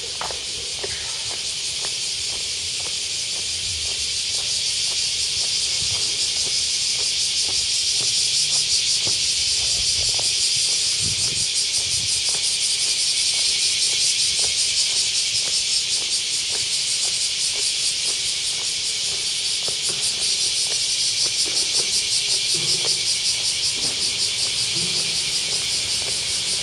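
Cicadas singing in a dense, shrill chorus: a rapid, even pulsing buzz that swells over the first several seconds and then holds.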